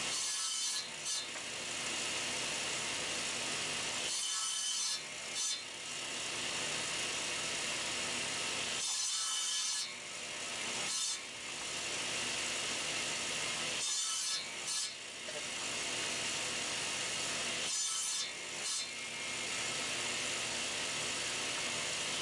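Table saw running with its blade set at an angle, cutting out the waste between dovetails as a board held on a fence jig is fed across it. The sound is steady but dips briefly about every four to five seconds.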